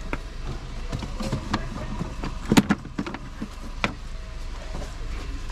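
Hard plastic clicking and knocking as the cowl and cabin-filter housing in a BMW 325i engine bay is handled, with a sharper knock a little past halfway, over a steady low rumble.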